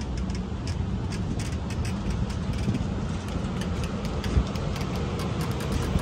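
Double-deck passenger train rolling slowly past, a steady low rumble with scattered light clicks from the wheels on the rails. The low diesel running of the Siemens SC44 Charger locomotive pushing at the rear grows slightly louder toward the end.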